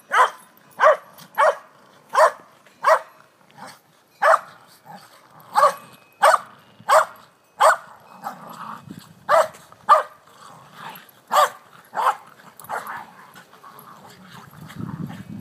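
Welsh corgi play-barking: short, sharp, high barks about every two-thirds of a second, then more irregular, with low growling between barks while the dogs play-fight.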